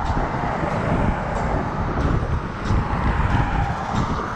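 Wind buffeting the microphone, a heavy uneven rumble over a steady rushing noise.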